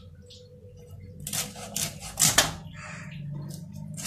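A hilsa fish scraped and cut against a boti's curved iron blade: a few short scraping strokes, the sharpest about two seconds in, over a low steady hum.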